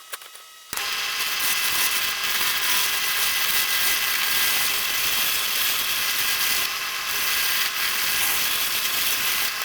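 Wood lathe running while a tool works the spinning 2x4 blank, a loud, steady scraping hiss with a faint whine through it. It starts suddenly about a second in and stops near the end.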